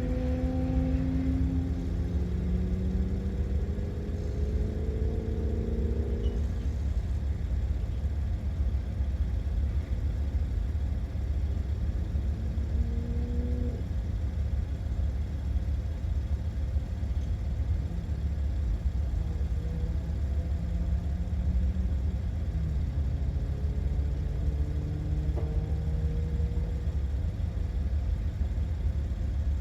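Porsche 986 Boxster's flat-six engine, heard from on board at speed on a race track. It pulls up in pitch several times as the car accelerates, over a heavy, steady low rumble.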